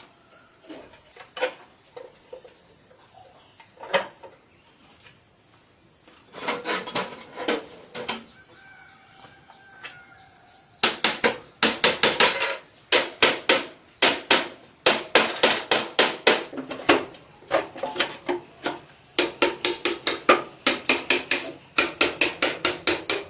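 Hammering during machine repair: a few scattered knocks and clinks at first, then from about halfway through, fast runs of sharp hammer blows, several a second.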